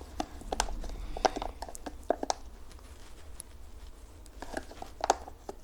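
Scattered light clicks and taps of small objects being handled on a work surface, with a steady low hum underneath.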